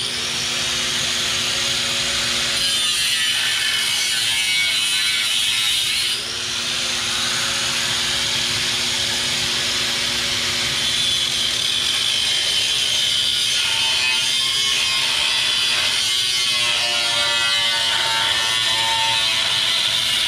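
Electric angle grinder with a cut-off wheel cutting through the steel frame rail of a 2001 Ford Ranger, a steady high whine that briefly dips about six seconds in. The cut is part of Z'ing the frame to raise the front crossmember section.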